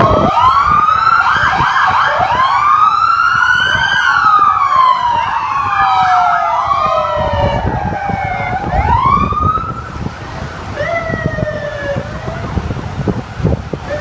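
Several police car sirens wailing at once, their rising and falling sweeps overlapping at different pitches. The sirens thin out and weaken after about ten seconds.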